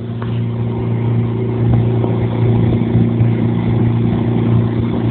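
Air-conditioning condensing unit running, with a steady, even hum from its compressor and fan.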